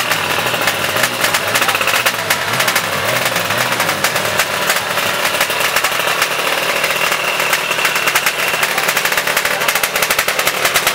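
Drag-racing motorcycle engines running loudly with open exhausts, a rapid, steady crackle with no clear rise or fall.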